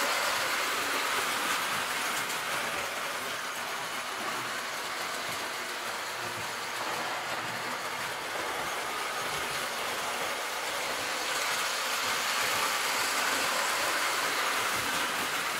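Prewar Lionel 265E O-gauge toy train running on O track: the steady hum of its electric motor with the clickety-clack of the wheels over the rail joints, kept very quiet by homosote under the track. It grows a little quieter midway and louder again near the end.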